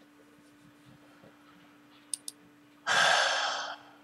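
Two quick mouse clicks, then a long heavy sigh close to the microphone, about a second long and fading out, over a faint steady hum.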